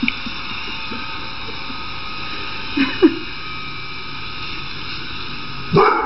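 Vacuum cleaner motor running with a steady hum and several steady high tones. A dog gives two short falling yelps about three seconds in and a louder bark near the end.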